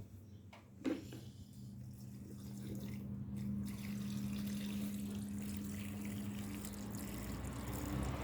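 A click, then water running steadily into the tub of a mini washing machine for the rinse, over a steady low hum.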